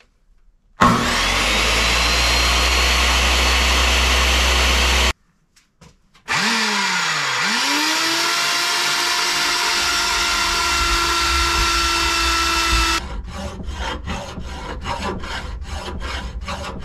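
Electric power tool with a cutting blade spinning up and running under load as it cuts, in two stretches, the second starting with a dip and rise in motor pitch. Near the end come rhythmic hand hacksaw strokes, about two or three a second.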